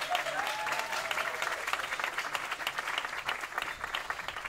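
Small audience applauding with dense, steady hand-claps, which begin to die down near the end.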